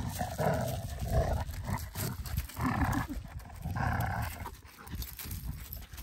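Two dogs, a golden retriever and a smaller dark dog, growling in play as they tug on a rope toy. The growls come in about three rough bursts and die down near the end.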